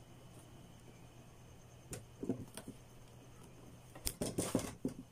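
Quiet handling noise as electrical wires and a plastic junction box are worked by hand: a few light clicks about two seconds in, then a denser cluster of clicks and rustling about four seconds in.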